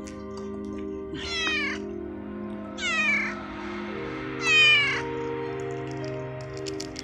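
Tabby cat meowing three times, the third the loudest, asking for food as it is about to be fed.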